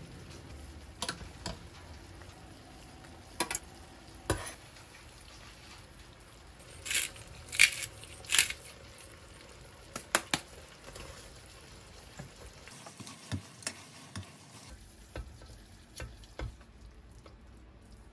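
Cream pasta sauce sizzling and bubbling in a frying pan, with scattered clicks and scrapes of utensils on the pan and a few louder short bursts in the middle.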